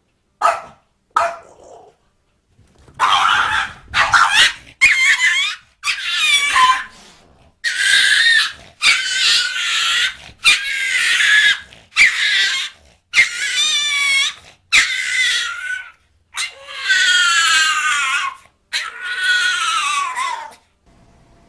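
A cat yowling in a rapid series of about twenty loud, drawn-out calls, the pitch bending up and down and some calls wavering.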